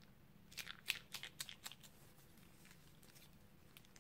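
Slime squeezed out of a plastic piping bag: a quick run of small crackles and pops lasting about a second, starting about half a second in.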